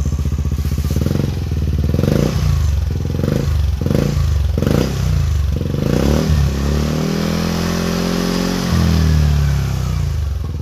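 Yamaha NMAX v2 scooter's single-cylinder four-stroke engine running through an aftermarket VMAX exhaust: idling, then blipped about six times in quick succession, then revved and held for a couple of seconds before falling back to idle near the end.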